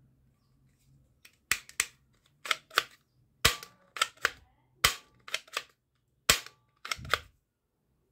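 White plastic toy air pistol's mechanism being worked by hand: about a dozen sharp plastic clicks and snaps, mostly in pairs, a few with a brief ring after them.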